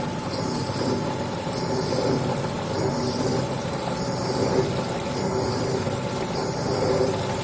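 Special-purpose piston-ring lathe running under automatic feed, its spindle turning and cutter cutting the ring stock with coolant flowing. A steady machine hum, with a high hiss that swells about once a second.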